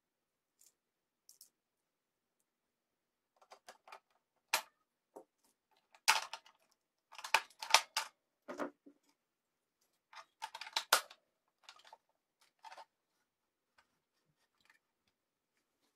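Clicks and knocks of AA batteries being pried out of a compact sewing machine's tight plastic battery compartment, in three clusters with pauses between, the loudest in the middle.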